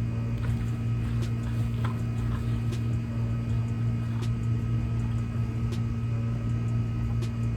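Steady low hum of an air-conditioning unit running close by, with a few faint clicks and taps over it.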